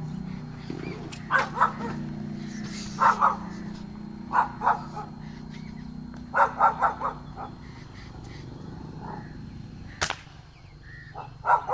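A dog barking in groups of two to four barks over a low steady hum. About ten seconds in comes a single sharp crack from an air rifle shot, then a few more barks.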